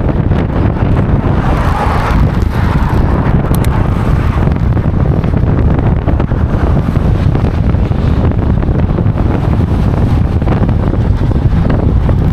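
Very strong wind buffeting the microphone: a loud, steady rumble of wind noise.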